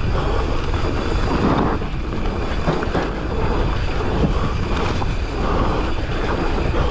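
Wind buffeting the camera microphone as a mountain bike rolls fast down a loose dirt trail, with steady tyre noise and a few brief clatters from the bike.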